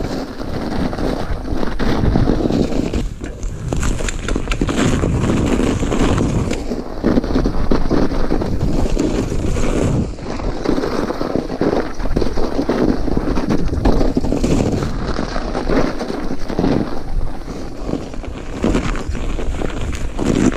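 Mountain bike riding down a snow-covered trail: wind buffeting the camera microphone over the rolling tyre noise, with frequent knocks and rattles as the bike goes over bumps.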